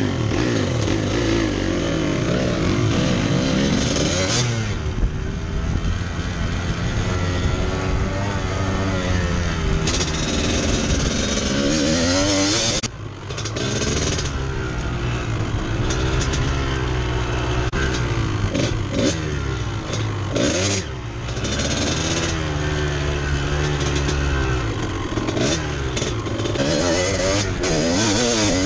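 Trail motorcycle engine under way, its pitch rising and falling again and again as the throttle opens and closes, with a brief dip about 13 seconds in.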